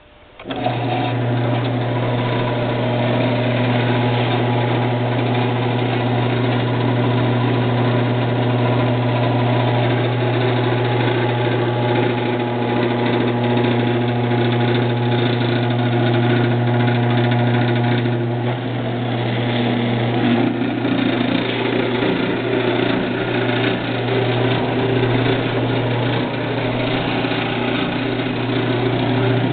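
COSEN VECTRAX 7x12 belt-drive band saw switched on and running at a steady hum, with its motor and blade going. It starts about half a second in and shuts off near the end.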